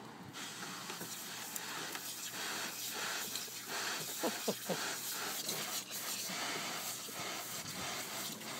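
Garden hose spraying water into a plastic kiddie pool with a steady hiss, coming on just after the start, while a pit bull bites and laps at the stream, with splashing and water sloshing. A couple of short squeaks come about halfway through.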